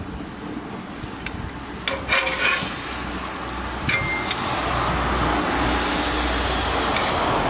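Marinated pork tenderloin sizzling on the hot cast-iron grate of a Weber Spirit 330 gas grill as it is turned with metal tongs. A few clicks of the tongs come about two seconds in, then the sizzle swells from about three seconds on as the unseared side meets the grate, over a low steady rumble.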